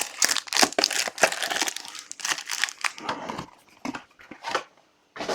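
Trading card packaging crinkling and crackling in the hands as it is handled and opened, a rapid irregular run of sharp crackles.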